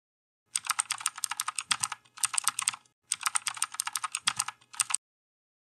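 Computer keyboard typing sound effect: rapid key clicks, about ten a second, in four bursts of typing with short gaps, accompanying text being typed onto the screen. It stops about five seconds in.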